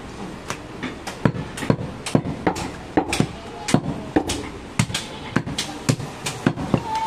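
Butcher's cleaver chopping through goat meat and bone against a wooden chopping block: a run of sharp, irregular knocks, about two to three a second.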